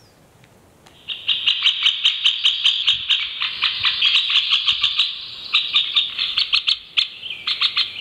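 Middle spotted woodpecker calling: short notes repeated quickly, about seven a second, in three runs starting about a second in.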